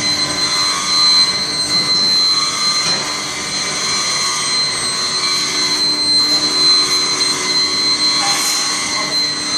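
Crucible melting furnace running: a steady roar with a constant high-pitched whine.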